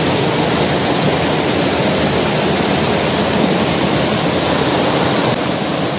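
Waterfall on a jungle river: rushing water making a loud, steady roar.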